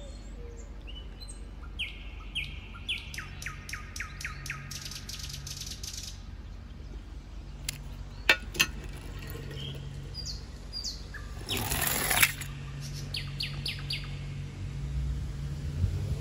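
Small birds chirping, with a quick run of chirps about three to six seconds in. Two sharp clicks come a moment apart about eight seconds in, and a brief noisy rush about twelve seconds in, over a steady low hum.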